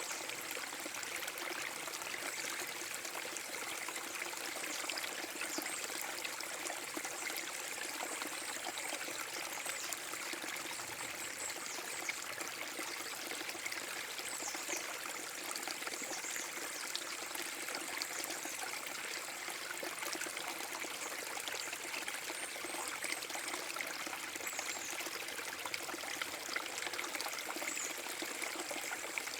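A small forest brook waterfall, water pouring and trickling steadily over a low drop into the stream. A few short, high bird chirps sound now and then over the water.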